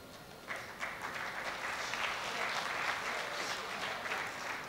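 Audience applauding, starting suddenly about half a second in and building over the next second or so into steady clapping.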